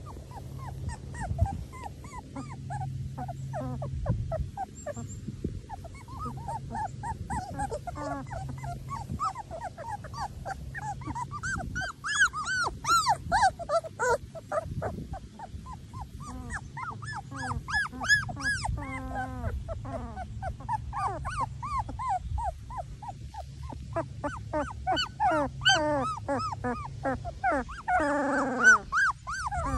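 A litter of three-week-old Labrador puppies whimpering and squeaking, with many short, high cries overlapping, thicker and louder from about halfway through. Near the end one longer cry falls steeply in pitch.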